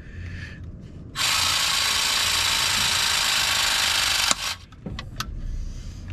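Battery-powered press tool pressing a copper press fitting: its motor runs steadily for about three seconds and stops with a sharp click as the press completes, followed by a few lighter clicks.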